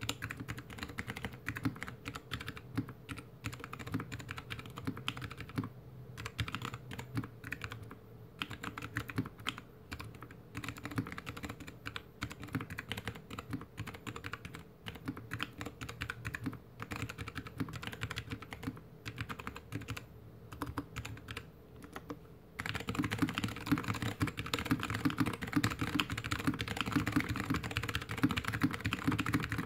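Typing on a GK61X mechanical keyboard with stock Kailh BOX Mute Jade clicky switches, a stainless steel plate, a plastic case and DSA keycaps, resting on a desk: steady slow keystrokes, then about 22 seconds in the typing turns fast, louder and denser.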